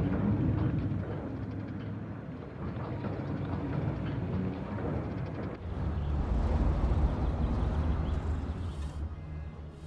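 Vehicle traffic: a steady low engine rumble, growing heavier from about six seconds in as a louder vehicle comes through.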